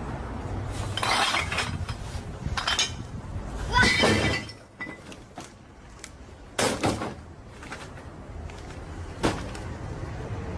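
Several separate crashes and clatters, about five in all, the loudest about four seconds in.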